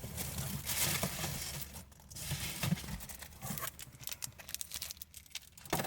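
Paper or plastic packaging being handled, crinkling and rustling, with a few small clicks.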